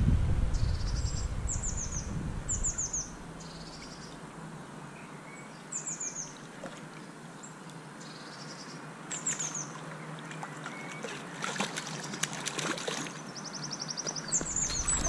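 Small songbirds singing: short, high-pitched phrases of three or four quickly falling notes, repeated every second or two. A low rumble sits under the start and comes back near the end, and a cluster of sharp clicks comes about eleven to thirteen seconds in.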